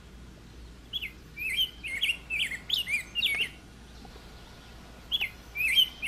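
Bird chirping: two runs of short whistled notes that hook up and down in pitch, about three a second, the first starting about a second in and the second near the end.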